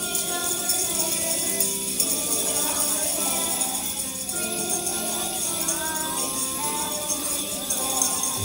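Many children shaking jingle bells, a constant jingling over Christmas music.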